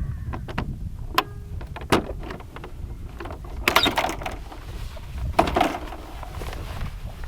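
Steady low wind rumble with a handful of sharp clicks and knocks, the loudest clustered a little past the middle.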